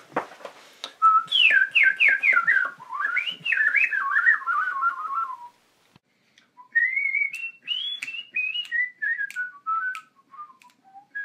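A person whistling a quick tune through the lips, in two phrases of rapid, bending notes with a short pause between. The second phrase steps down in pitch toward its end.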